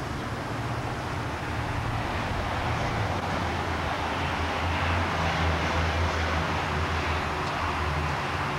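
Steady outdoor background rumble with a low hum, like nearby road traffic.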